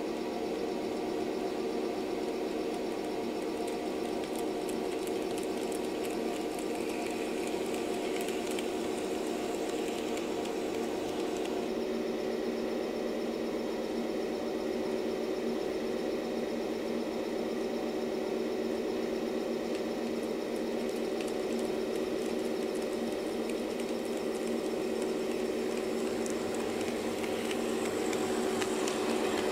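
HO-gauge model train running on the layout: a steady hum with several held tones and a light hiss above them.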